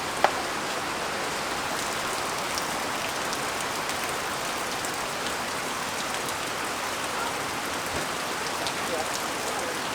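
Steady rain falling, an even hiss with scattered drops ticking, and one sharp click just after the start.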